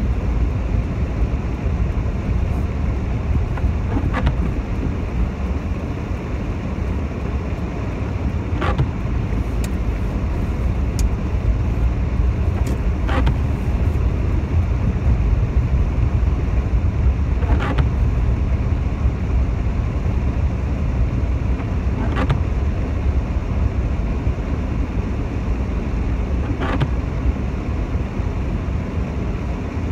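Steady low rumble of a car's engine and tyres on a wet road, heard from inside the cabin. The windscreen wipers make a short sweep about every four and a half seconds.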